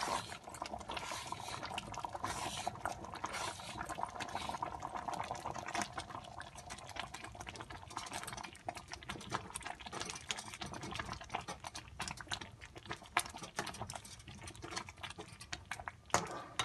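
Thick rice-and-jaggery mixture bubbling in a steel pot, with many small pops and crackles, while a metal spoon stirs through it. The mixture has cooked down thick.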